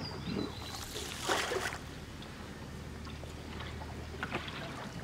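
Wooden river boat under way: a steady low engine drone with water washing along the hull, and a short rush of water noise about a second and a half in.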